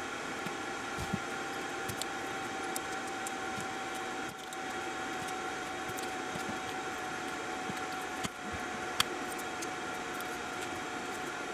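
Small electric motor running with a steady hum, with a few light clicks and one sharp click about nine seconds in.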